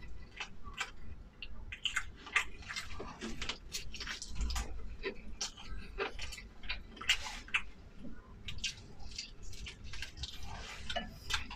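Chewing and mouth sounds of someone eating close to the microphone: a run of irregular short clicks and smacks.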